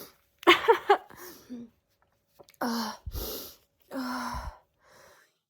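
A woman's loud voiced exclamation, then a run of breathy gasps and sighs with a short sharp exhale in the middle: the hitching breaths of a sneeze that is still building.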